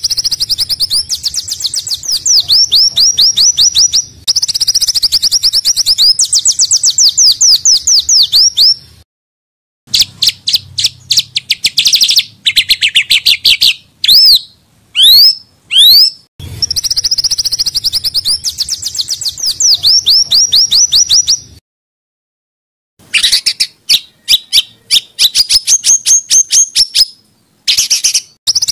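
Recorded small songbirds' rapid-fire, harsh song phrases: fast runs of high, sharp notes, about ten a second, in bursts of a few seconds broken by abrupt silent cuts. Near the middle come a few loud slurred whistles that sweep up and down.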